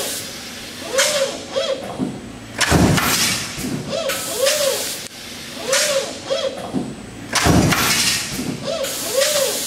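Stamping press with a one-bar transfer system running in automatic cycle. The transfer drive gives short whines that rise and fall in pitch, in pairs, mixed with hissing and heavy thuds from the press strokes. The whole cycle repeats about every two and a half seconds.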